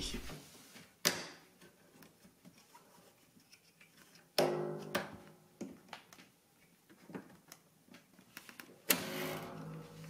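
Clicks and scrapes of pliers and hands hooking a dishwasher door's spring cable onto the door hinge, with three sharper knocks about one, four and a half and nine seconds in; the last two are each followed by a short metallic twang.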